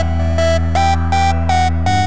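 Electronic background music: short repeated synth notes, about three a second, over a steady bass.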